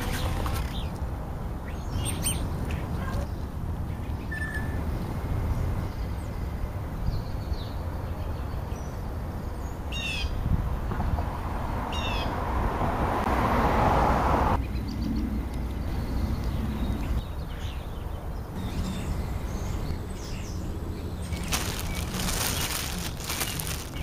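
Outdoor ambience: a steady low rumble with two short, falling bird chirps about ten and twelve seconds in. A rushing noise swells and cuts off abruptly about fourteen seconds in.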